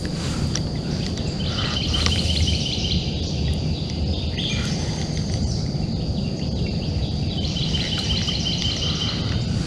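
Wind buffeting the microphone outdoors, a steady low rumble, with songbirds singing in two runs of rapid repeated chirps, one a second or two in and one near the end.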